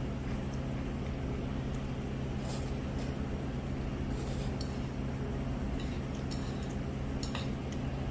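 Scattered light clicks and clinks of utensils against a bowl while eating jjajangmyeon, over a steady low hum.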